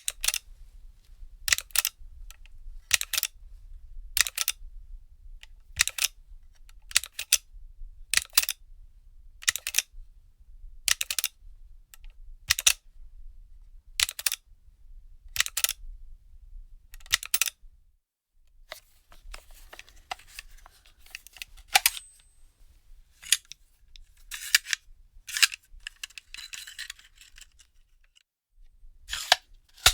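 A firearm magazine being handled: a regular series of sharp metallic clicks about every second and a half, then a stretch of scraping and rattling with a few clicks, and one more sharp click near the end.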